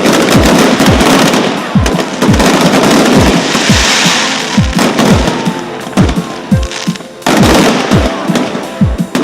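Fireworks crackling and banging, with a dense burst of crackle about four seconds in, over loud music with a deep kick-drum beat about twice a second.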